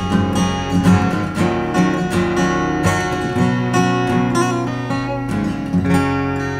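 Cowboy GW 240 NA acoustic guitar played fingerstyle: a plucked melody over bass notes, with a chord struck near the end and left to ring.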